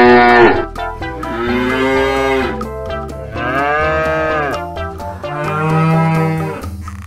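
Cows mooing: a string of long, drawn-out moos, about one every two seconds, over background music.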